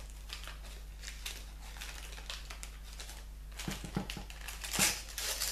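Paper crinkling and rustling as a small wrapped package is unwrapped by hand, with a cluster of louder crackles near the end.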